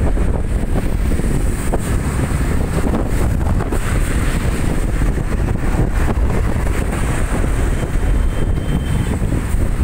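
Wind buffeting the microphone over the steady rumble of cars and trucks passing on a highway.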